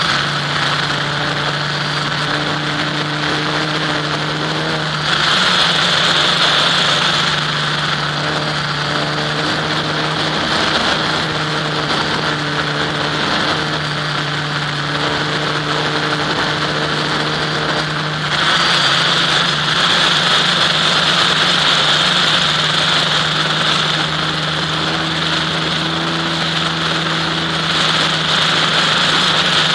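Electric motor and propeller of an FPV model aircraft in flight, heard through its onboard camera: a steady drone with a hiss of rushing air on top. It grows louder from about five to eight seconds in, and again from about eighteen seconds on.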